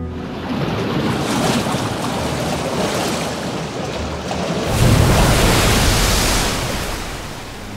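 Water rushing and splashing around a camera mounted at the waterline of a moving inflatable boat, with the sound changing as it dips under the surface and back up; it is loudest about five seconds in.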